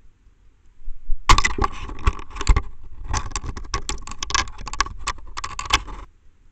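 Barn owl scrabbling and scuffling with its prey on the wooden perch at the nest box: a dense run of rapid scratching, rattling clicks starts about a second in, breaks off briefly, then continues until about half a second before the end.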